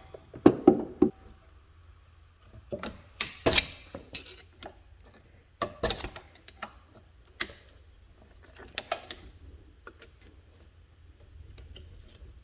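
Irregular metallic clicks, knocks and clinks of hand tools on a car's rear brake caliper as it is worked to get it moving, with a few louder knocks spread through.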